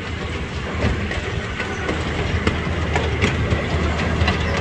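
Miniature train running along its track, heard from a passenger car: a steady low rumble with scattered clicks of the wheels over the rail joints.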